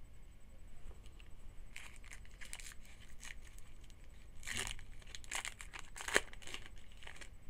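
A 2011 Topps Rising Rookies trading-card pack wrapper being torn open and crinkled: a run of crackling tears lasting several seconds, loudest about four and a half and six seconds in.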